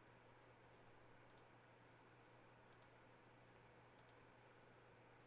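Near silence broken by faint clicks, each a quick double tick, three times about a second and a half apart: a computer mouse clicking to rerun a name randomizer.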